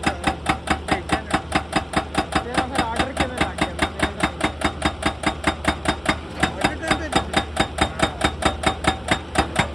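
Excavator's hydraulic breaker hammering rock, a fast even run of about five or six blows a second, over the steady low hum of the machine's engine.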